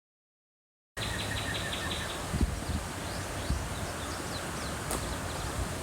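Outdoor ambience that cuts in suddenly about a second in. A rapid chirping trill of about eight pulses a second is followed by scattered faint high chirps from birds, over a steady low rumble with two brief dull bumps.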